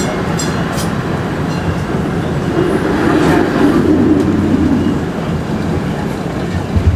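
A UTDC/Hawker Siddeley CLRV streetcar running along the rails, a steady rumble of wheels and running gear that swells for a couple of seconds midway, with a few light clicks about half a second in.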